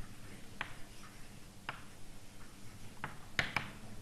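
Chalk tapping on a blackboard while writing: about five sharp, irregular taps, two in quick succession near the end being the loudest.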